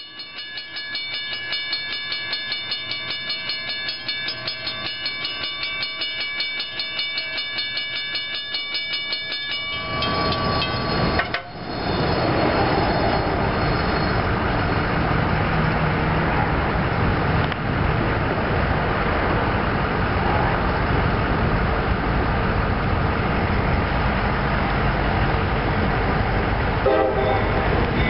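Grade-crossing warning bell ringing in a rapid, even rhythm. About ten seconds in, a loud, steady rushing noise rises and covers it for the rest of the time.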